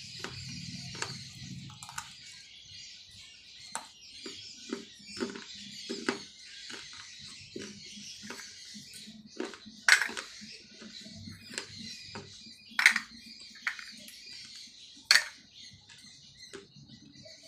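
Dry clay cup pieces being bitten and chewed with the mouth close to the microphone: a run of small, irregular crunches, with three much louder sharp cracks in the second half.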